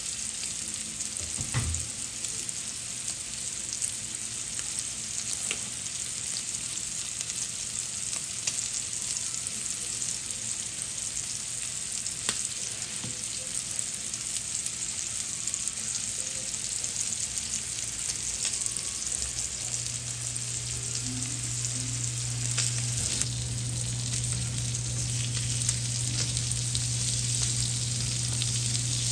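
Food frying in a pan: a steady sizzle with occasional small clicks. A low steady hum comes in strongly about twenty seconds in.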